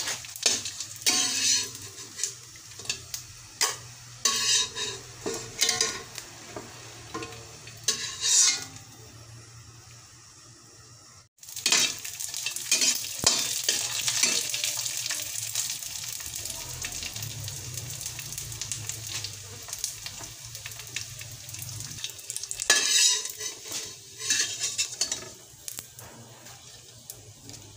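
Dried danggit (rabbitfish) frying in oil in a steel wok: a steady sizzle, with a utensil scraping and clinking against the wok in bunches of short strokes as the fish is turned. The sound cuts out briefly about eleven seconds in, then the sizzle comes back louder.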